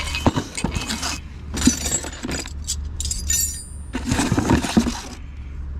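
Metal parts clinking and rattling as an accelerator cable is handled and worked back and forth, in four bursts with a bright metallic ring. A steady low hum runs underneath.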